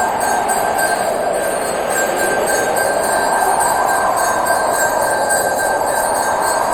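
A small pooja bell (ghanti) rung continuously: a steady, unbroken ringing at even loudness.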